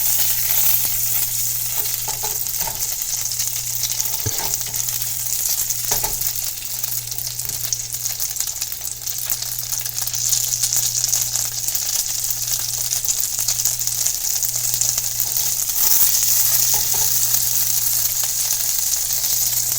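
Quesadillas frying in butter in a pan, a steady sizzle with a low hum underneath and a couple of faint knocks about four and six seconds in.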